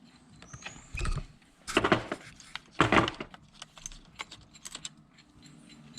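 Metal tools and parts clinking and rattling: three louder clattering clanks about one, two and three seconds in, then a run of small ticks and clicks.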